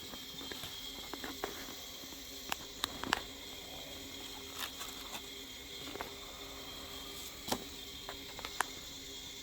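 Scattered light clicks and handling noises of speaker packaging being opened and handled, over a steady faint hiss.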